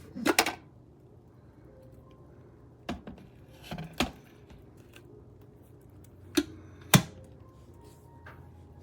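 A handful of sharp clicks and knocks of hard objects being handled, about six in all: a quick double knock at the start, two more around three to four seconds in, and two loud ones near seven seconds.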